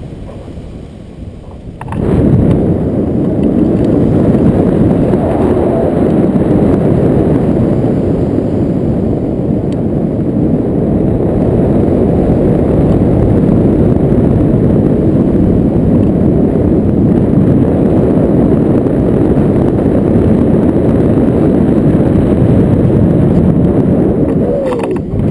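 Wind buffeting an action camera's microphone on a tandem paraglider in flight: a loud, steady low rumble, quieter for the first two seconds, that dies away just before the end as the glider comes down to land.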